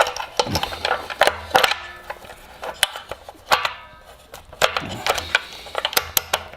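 Metal parts and hand tools clinking and knocking on a workbench: a string of sharp irregular clicks, some ringing briefly, as the camshaft chain sprocket is fitted to the engine.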